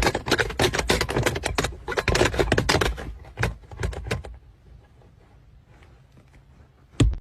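A rapid run of irregular clicks and taps for about four seconds, fading to a faint stretch, with one more sharp click near the end.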